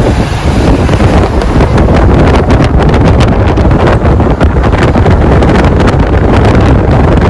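Loud wind buffeting the microphone: a steady rumbling rush with rapid crackles throughout.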